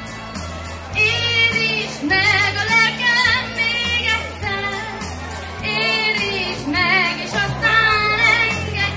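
A woman singing a pop song with vibrato into a microphone over amplified accompaniment with a steady bass line, heard through PA speakers in the open air; her voice comes in about a second in and carries on in phrases.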